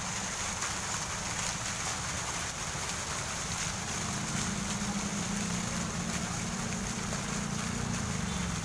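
Steady outdoor noise: wind rumbling and buffeting on the microphone over a constant hiss.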